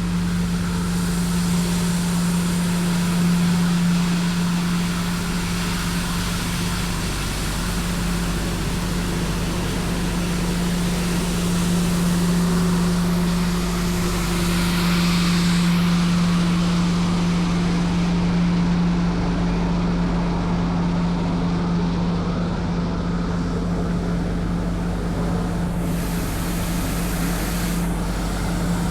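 Tymco 435 regenerative-air street sweeper running steadily: a constant low machine hum with an even hiss over it, the hiss swelling briefly about halfway through.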